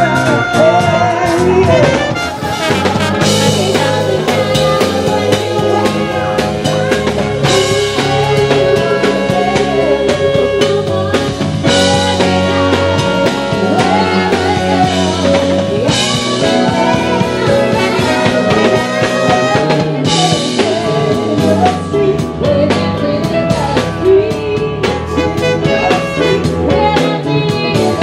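Live band playing, with women singing over a drum kit and bass. A cymbal crash comes about every four seconds.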